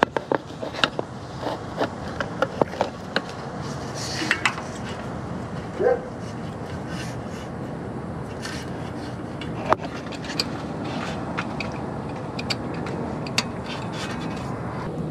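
Scattered clicks, taps and scrapes of hands and metal and plastic parts being worked at a Jeep Wrangler JK's rear wheel speed sensor and its wiring connector, over steady background noise. The clicks come thickest in the first few seconds and then thin out.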